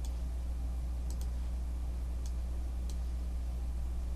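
A handful of sparse, separate clicks at a computer, about six over four seconds, over a steady low hum.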